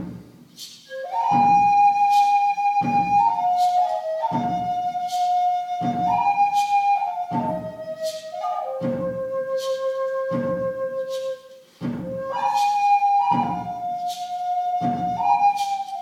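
Native American river cane flute playing a slow melody of long held notes that step up and down, with a short breath break about two-thirds of the way through. Under it runs a steady low beat about once a second.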